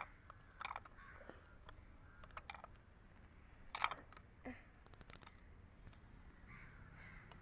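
Light, scattered clicks and taps of plastic toy pieces being handled, with a slightly sharper click about four seconds in.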